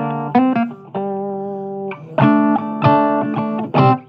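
Blues guitar playing a short instrumental passage between sung verses, with repeated chords and notes that ring on for about a second at a time.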